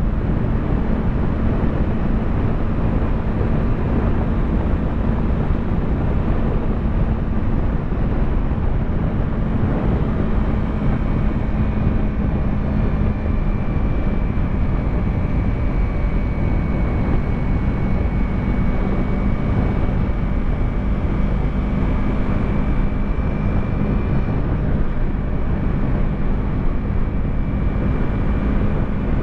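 Yamaha YZF-R3's 321 cc parallel-twin engine running at a steady cruise, its note holding even with no revving or gear changes.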